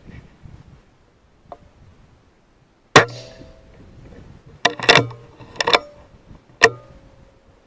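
Weihrauch HW100 PCP air rifle firing about three seconds in: one sharp crack with a short metallic ring. It is followed by a quick run of sharp knocks and clicks and a last knock near the end, each with a brief ring.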